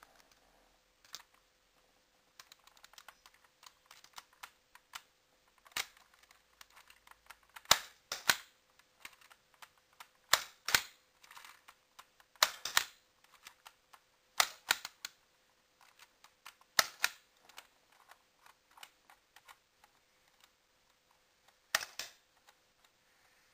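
Lego brick-built shotgun replica being worked and fired, sharp plastic clacks: about six loud double clicks spaced a couple of seconds apart, with smaller rattling clicks of handling between them.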